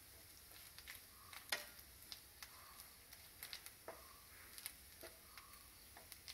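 Wooden spatula stirring grated coconut as it dry-roasts in a nonstick pan: quiet soft scrapes and swishes with scattered light clicks.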